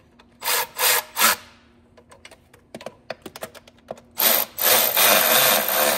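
Handheld power tool running bolts down in three short bursts, a few light clicks, then a longer run of about two seconds near the end, tightening the bolts.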